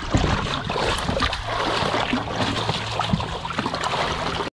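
Water splashing and churning at the side of a boat as a landing net scoops a fish out of the sea, with a few sharper splashes. A steady low engine hum runs underneath.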